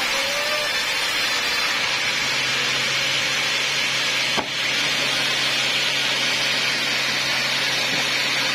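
Sawmill band saw running steadily, a constant loud mechanical noise with a low hum underneath, and one sharp click about four and a half seconds in.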